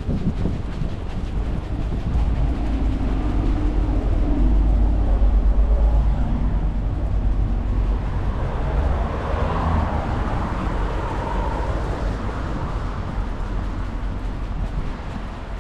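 City street traffic, with a heavy vehicle passing close by. Its low rumble swells about four to six seconds in and then slowly fades.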